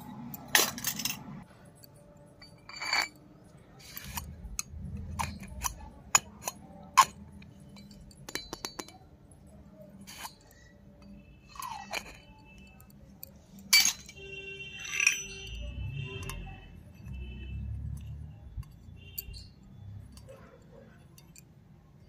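Miniature stainless steel toy utensils clinking and knocking together as they are handled: a small steel container, its lid and a tiny steel bucket with a wire handle. A string of separate sharp clinks, with a brief metallic ring a little past the middle.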